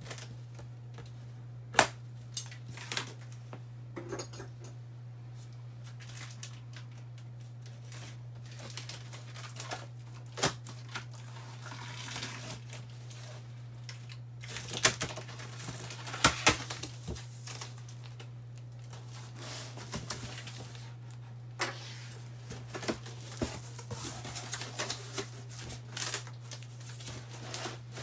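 Scissors snipping plastic banding straps, then packing tape peeling and cardboard flaps being opened on a cardboard box: scattered sharp snips and clicks with stretches of tearing and rustling. A steady low hum runs underneath.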